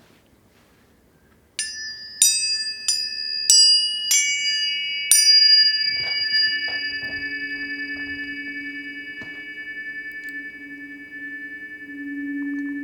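Tuning forks struck one after another, about six sharp strikes each leaving a clear, high ringing tone that keeps sounding under the next. Partway through, two lower steady tones join and hum on, swelling near the end.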